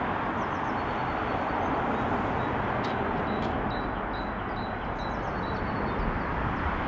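Steady rush of road traffic on the street below, with faint high chirps over it.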